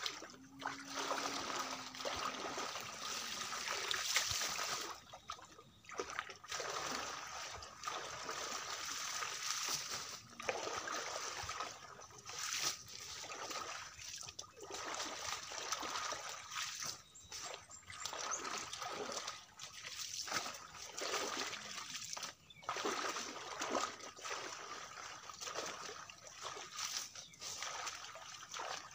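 Shallow pond water splashing and sloshing in irregular bursts as a person wades knee-deep and works his hands in the water.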